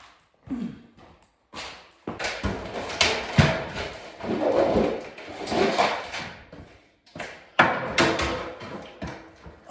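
Wall paneling being torn off by hand: irregular knocks, scraping and clatter of wood, with several sharp bangs.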